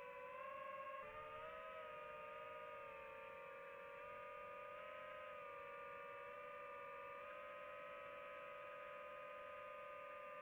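DJI FPV drone's motors and propellers whining steadily as it flies, several tones together that shift slightly in pitch, with a small step about a second in as the motor speed changes.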